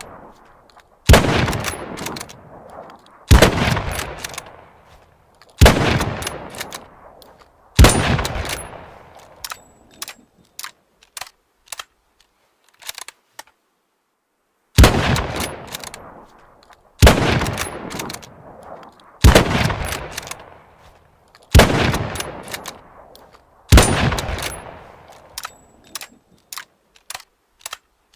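Mosin-Nagant bolt-action rifle (7.62×54mmR) firing nine single shots, each about two seconds apart with a long echoing tail: four shots, a run of sharp clicks and a short pause, then five more shots followed by more clicks.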